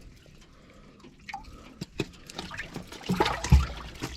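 Water splashing and dripping, with a few small clicks, as a crappie is clipped onto a fish stringer. The splashing gets louder about three seconds in.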